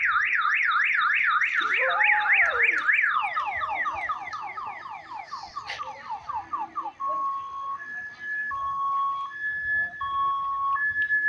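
Electronic siren-style bicycle horn cycling through its tones: a fast up-and-down warble, then about three seconds in a run of quickly repeated falling sweeps, and from about seven seconds a steady two-tone high-low alternation.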